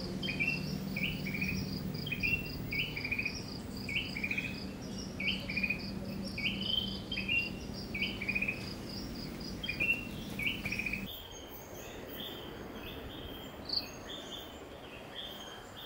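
Outdoor nature ambience: insects trilling steadily, with short chirping phrases repeated about once a second, over a low hum. About two-thirds of the way through, the hum stops and a different insect chorus takes over.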